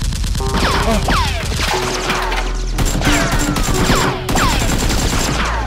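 Edited-in automatic gunfire sound effects standing in for toy blasters: about three long bursts of rapid shots, with ringing pings that slide down in pitch after them.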